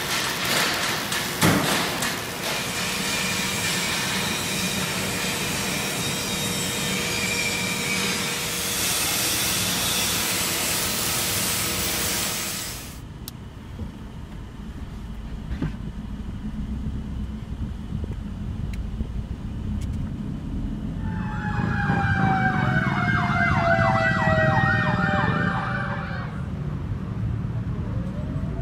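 Metal workshop noise with the hiss and crackle of arc welding, cutting off abruptly about 13 seconds in to the low rumble inside a moving van. About 21 seconds in, a siren wails rapidly up and down for about five seconds.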